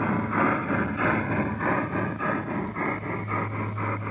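G scale model train cars rolling past on the track, their wheels clicking over the rail joints in a steady rhythm of about three to four clicks a second, with a low steady hum beneath that grows louder about three seconds in.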